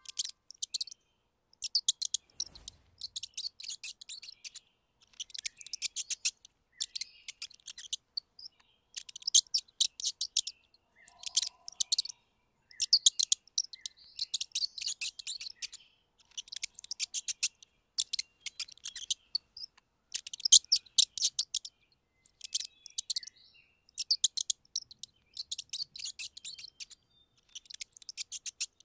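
Mice squeaking: rapid trains of short, very high-pitched chirps in clusters about a second long, repeating every second or two.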